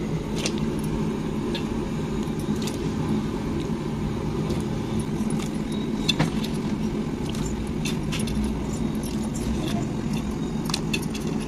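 Pieces of country chicken dropped by hand into water in an aluminium pressure cooker, giving scattered splashes and light clinks over a steady low rumble.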